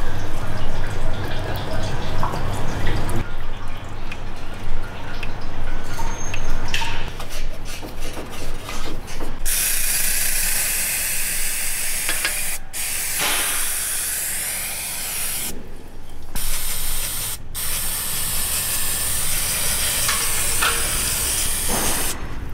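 Transmission oil dripping and trickling from the exposed automatic-transmission valve body with its pan removed. About halfway through an aerosol spray can starts hissing in long bursts with a few short breaks as it is sprayed onto the valve body.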